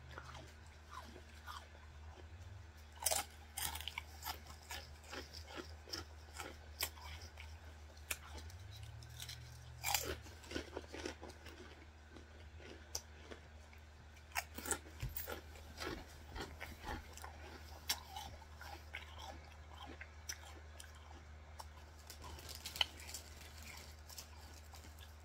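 Close-miked chewing and mouth sounds: irregular soft crunches and clicks at uneven spacing over a steady low hum.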